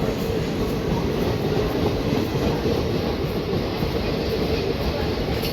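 Passenger train running along the track, a steady rumble of wheels on rails with no horn.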